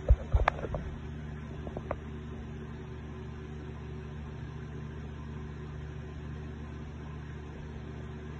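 Steady low machine hum, with a few knocks and rubs in the first two seconds from the phone being handled.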